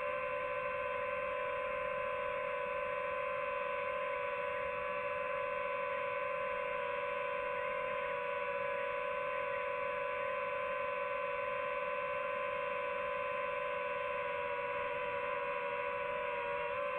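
DJI FPV quadcopter's motors and propellers whining steadily at a hover, one even pitch with higher overtones, wavering briefly right at the end.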